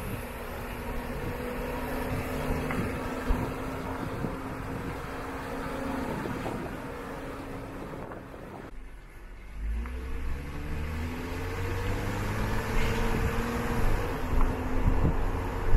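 A vehicle's engine running on the move, with wind noise over it. The sound drops away sharply about nine seconds in, then the engine's pitch climbs in steps as it accelerates.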